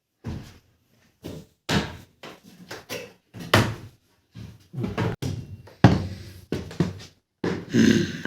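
A string of separate knocks, thuds and bangs in a small room, typical of doors and furniture being banged about during a search.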